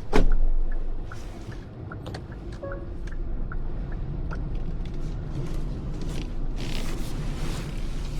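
A single sharp thump right at the start, then the steady low rumble of the car's engine and tyres heard inside the cabin, with a few faint ticks and a short hiss near the end.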